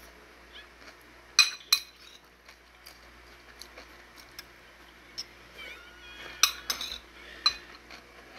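A metal spoon clinking against a ceramic bowl while food is scooped: a few sharp clinks, two close together about a second and a half in, two more about six and a half seconds in, and one near the end.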